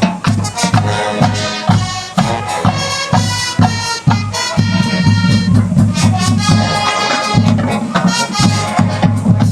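High school marching band playing: brass holding loud pitched chords over a steady beat of drum strokes.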